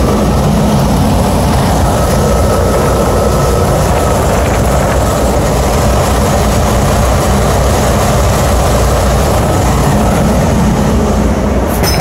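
Trane 90-ton rooftop unit running, its compressors and fans making a loud, steady hum and rush of air; the unit is operating normally.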